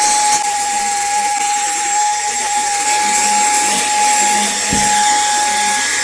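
NUUK REN GO cordless handheld vacuum cleaner running at normal power: a steady high motor whine over an airy hiss, with a light bump nearly five seconds in.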